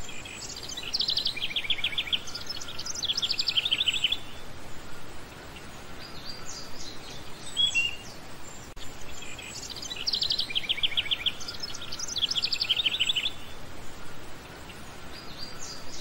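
Birdsong over a steady hiss: bursts of rapid chirping trills with a few single chirps between them. The same sequence comes round again about nine seconds later, as in a looped nature-sound track.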